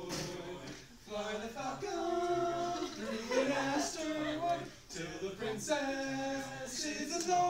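Men's voices singing without accompaniment, with long held notes.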